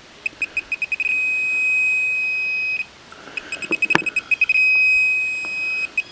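Metal detector pinpointer beeping over a native silver nugget. Twice, its beeps quicken and merge into one steady high tone, the sign of a strong, solid metal target. A sharp knock comes about four seconds in.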